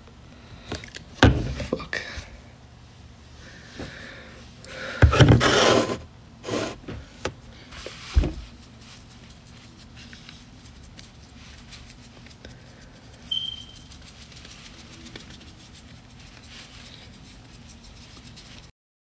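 A few thumps and rustles close to the microphone, the loudest a rustling burst about five seconds in, over a faint steady hum; a short high beep comes a little after halfway.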